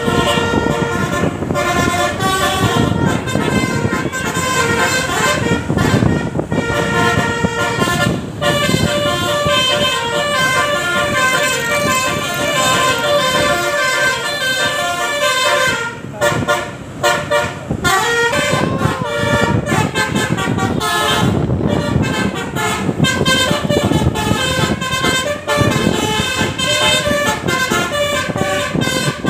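Bus 'telolet basuri' multi-tone horn playing a tune, note after note in quick steps, almost without pause, over a noisy background.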